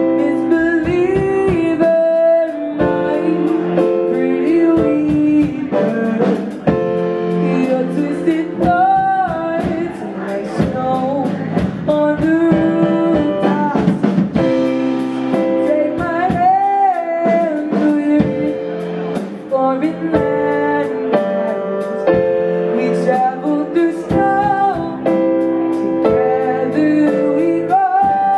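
Live band playing: a young male singer singing into a microphone over a Yamaha keyboard, electric bass guitar and drum kit.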